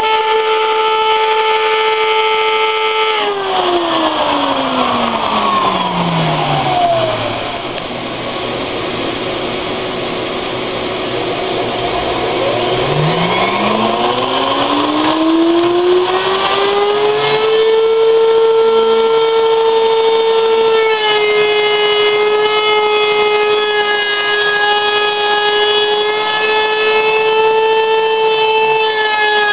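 Router motor whining at full speed. About three seconds in its pitch sinks steadily to a low hum, with a rough noise throughout. It then climbs back up to full speed over about five seconds and runs steadily again.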